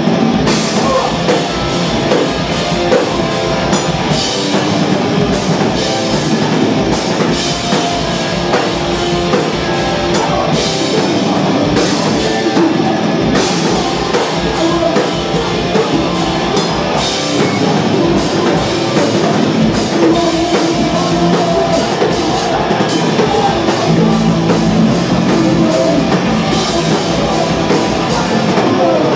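Live hardcore punk band playing loud: distorted electric guitars, bass and a drum kit pounding steadily, with the singer's vocals into the microphone over the top.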